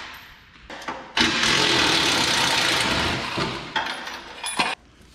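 DeWalt cordless drill run in one burst of about two seconds, starting just over a second in and dying away, followed by a few sharp metal clanks.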